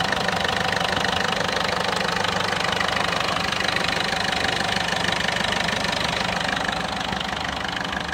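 Ford Duratorq TDCi diesel engine idling steadily with its usual diesel clatter, heard close up under the open bonnet. The owner finds it smoother and less sharp since an ABRO diesel additive (injector cleaner) went into the tank.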